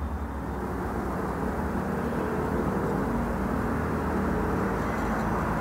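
A steady low rumble of background noise that slowly grows louder, with no distinct clicks or knocks.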